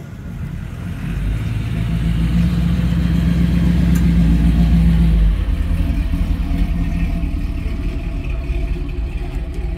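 A Chevrolet Nova SS's V8 engine and exhaust rumbling as the car rolls slowly past. It is loudest about halfway through, then eases off a little as the car pulls away.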